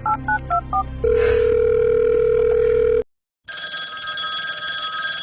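Touch-tone telephone keys beeping as a number is dialled, about four two-note beeps a second, then a loud steady tone for about two seconds. After a short break a telephone bell starts ringing.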